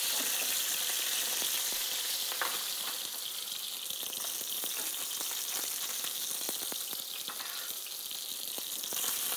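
Chicken pieces sizzling in oil in a hot frying pan, a steady hiss broken by light clicks and scrapes of a wooden spatula and fork as the browned pieces are lifted out onto a plate.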